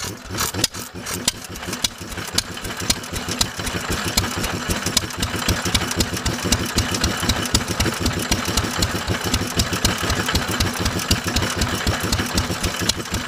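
2 hp Fairbanks Morse Model Z flywheel engine, set up with a Wall vacuum pump, running just after being hand-cranked: a steady, even beat of exhaust strokes that grows louder over the first few seconds as the engine comes up to speed, then holds steady.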